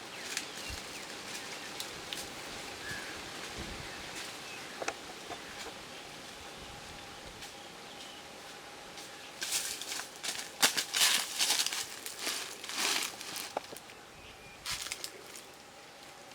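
Rustling and crackling, with a cluster of sharp crackles about ten to thirteen seconds in and a shorter burst near the end, over a faint steady background with a thin steady tone.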